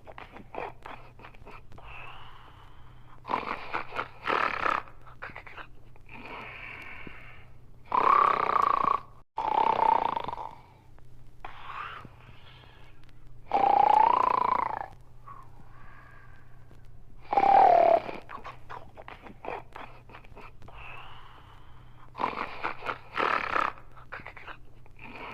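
Snoring in long drawn breaths, the louder snores a few seconds apart at an uneven pace with softer breathing snores between them.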